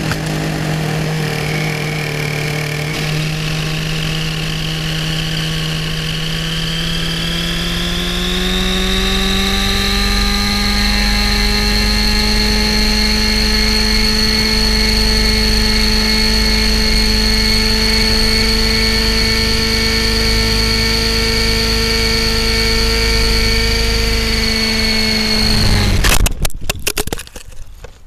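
Nitro RC helicopter's O.S. 50 SX Hyper two-stroke glow engine running, with a high rotor-gear whine. The engine and the whine rise in pitch as they spool up over a few seconds, then hold steady. Near the end the sound breaks into a jumble of sudden knocks and stops abruptly.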